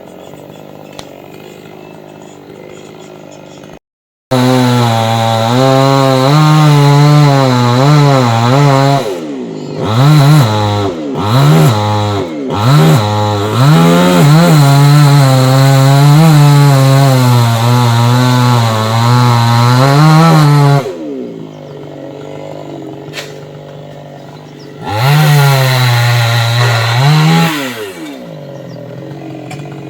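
Two-stroke chainsaw cutting into a palm trunk. It starts abruptly about four seconds in and runs at full throttle for about sixteen seconds, its speed dipping several times along the way. It then drops back low, with one more short burst of throttle near the end.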